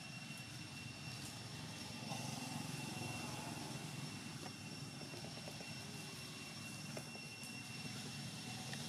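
Steady low rumble of distant engine noise, with a thin, steady high whine above it and a few faint rustles of dry leaves underfoot.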